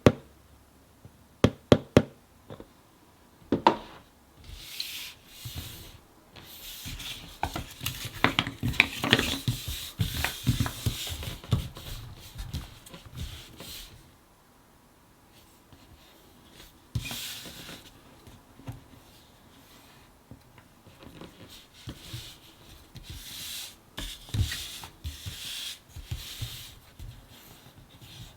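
Thick cardboard jigsaw puzzle pieces being handled on a table: a few sharp taps, then pieces sliding, rubbing and knocking as they are moved and pressed into place, in two spells with a short pause between.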